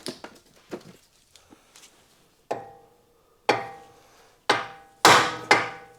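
Hammer blows on steel, five sharp ringing strikes about a second apart, coming quicker near the end, knocking the tie rod end loose from the steering knuckle. A few light metal clicks come before them.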